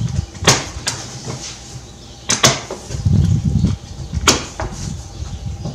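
Unpacking a cardboard shipping box by hand: cardboard and packing rustling and scraping, with several sharp knocks as the contents are moved around inside.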